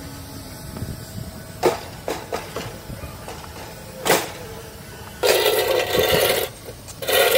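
Aluminium crowd barrier panels being handled on a concrete floor: a couple of sharp metal knocks, then a harsh scraping noise lasting over a second about five seconds in, and another near the end, as a barrier is shifted across the floor.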